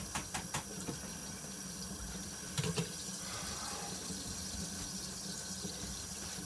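Kitchen tap running steadily into a sink, with a few sharp knocks in the first second and again a little over two and a half seconds in.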